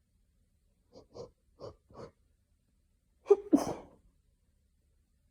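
A person sneezing: four short, soft sounds in quick succession, then one louder sneeze about three and a half seconds in. The sneezing is a fit that the sneezer hopes is hayfever and not a cold.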